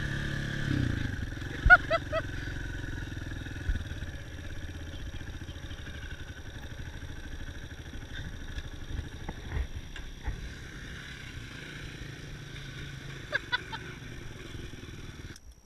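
Dirt bike engine running while being ridden. It is louder in the first second or so, then settles to a steadier, lower level, with a few short clicks and knocks.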